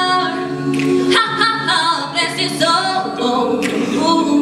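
A mixed youth a cappella group singing unaccompanied in harmony, several voices holding and shifting chords together.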